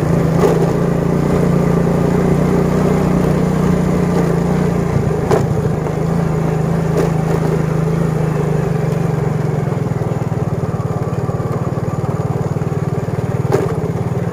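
Motorcycle engine running steadily while being ridden over a rough dirt track. About ten seconds in it eases to a lower, pulsing note, with a couple of sharp knocks along the way.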